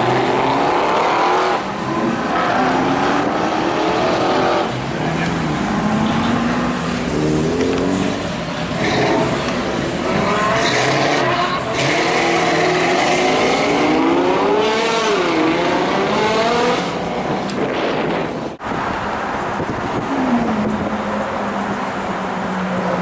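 Several sports car engines revving and accelerating past one after another, their pitch rising and falling with throttle and gear changes. Near the end one engine note drops and settles into a steady drone.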